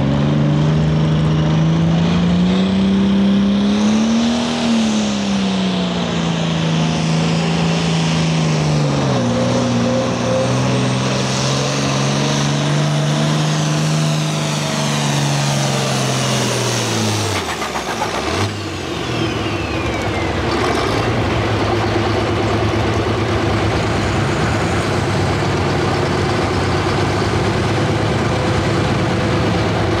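International Harvester 1466 Turbo tractor's turbocharged diesel engine running hard under load while pulling a weight-transfer sled, its pitch rising and falling. About 17 seconds in the revs drop sharply as the pull ends, a high whine sweeps down, and the engine settles to a steady idle.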